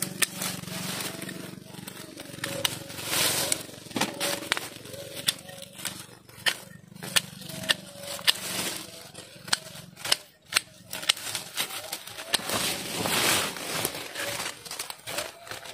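Dry undergrowth being pushed through and handled: irregular sharp cracks and snaps of twigs and dry leaves, with a few longer bursts of rustling.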